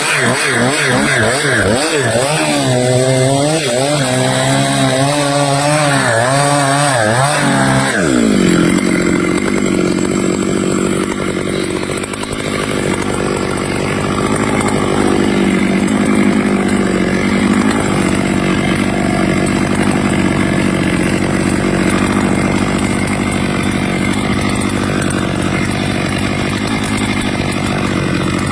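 Stihl chainsaw revving up and down for about eight seconds, then settling to a steady lower pitch as it bites into teak wood under load.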